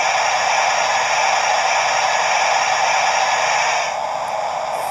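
Steam-locomotive blower sound from the Hornby TTS sound decoder in the R3244TTS Duke of Gloucester model, played through the model's small speaker: a loud, steady steam hiss whose higher part thins out about four seconds in.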